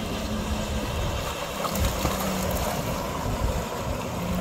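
Wind rumbling on the microphone over water splashing at the side of a boat as a big blue catfish thrashes at the surface on a jug line, with a low hum that comes and goes.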